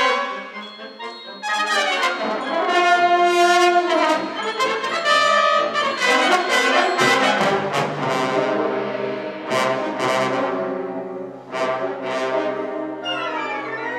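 Symphonic wind band playing, the trombones and trumpets carrying held brass chords, with a few sharp accented hits about two-thirds of the way through.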